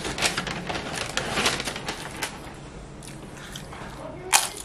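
Paper takeout bag crinkling and rustling as a hand rummages in it, then one loud crunch about four seconds in as a tortilla chip is bitten.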